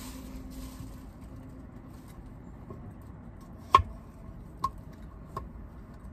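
Kitchen knife cutting small white potatoes on a wooden cutting board: three sharp knocks of the blade striking the board in the second half, the first the loudest.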